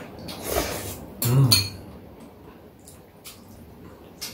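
Noodles being slurped and chewed, loudest in the first two seconds, then a few light clicks of chopsticks against the bowls.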